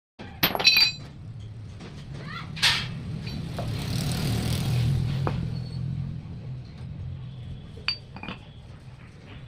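Metal parts clinking and ringing, with a sharp knock about two and a half seconds in and another clink near the end, over a steady low hum.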